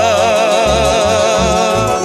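Andean huayno: male voices hold one long sung note with wide vibrato, ending near the end, over strummed mandolins and a guitar playing moving bass notes.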